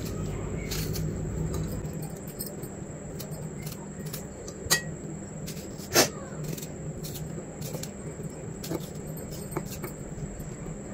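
A kitchen knife cutting a tomato held in the hand over a glass plate: small scattered clicks and taps, with two sharper clicks about four and a half and six seconds in, over a steady low hum.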